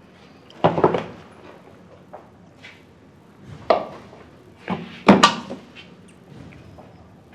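Tableware and furniture being handled in a small eatery: a loud clatter just under a second in, then a sharp knock and two more close together, the last the loudest, as dishes are set down on a table.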